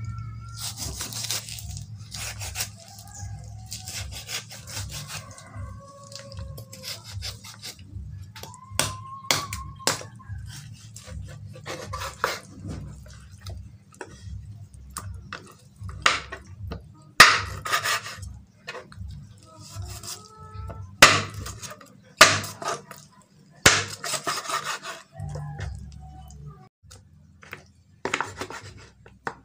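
A large kitchen knife chopping raw chicken into small pieces on a wooden cutting board: irregular sharp chops onto the wood, the loudest a little past halfway.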